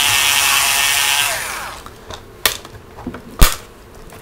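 Cordless electric screwdriver whirring as it backs out a laptop's bottom-panel screw, winding down about a second and a half in. Then a few light clicks and one sharp knock about three seconds in as the plastic panel is worked loose.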